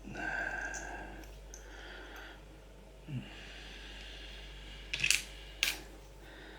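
A person breathing heavily through the nose while working. About five seconds in come two sharp clicks, half a second apart.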